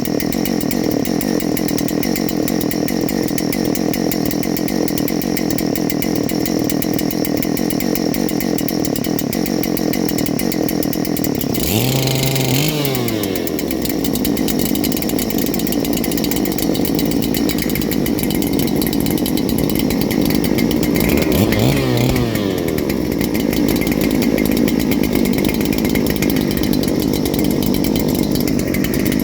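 Neo-Tec NH8120 chainsaw, a clone of the Husqvarna 3120XP with a two-stroke engine, running steadily on its first start. It is revved up briefly and drops back twice, about twelve seconds in and again about twenty-two seconds in.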